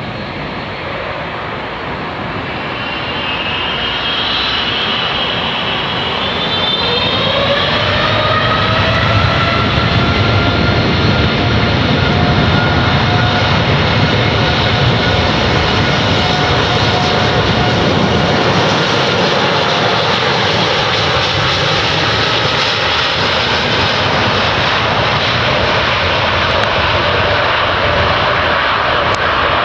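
Boeing 787 twin turbofan engines spooling up to takeoff thrust: a whine rising in pitch and growing louder over the first several seconds, then a steady loud jet rush with a held whine through the takeoff roll.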